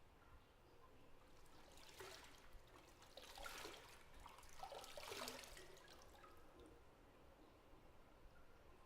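Faint bathwater sloshing and dripping in a bathtub, in a few soft swells between about two and six seconds in.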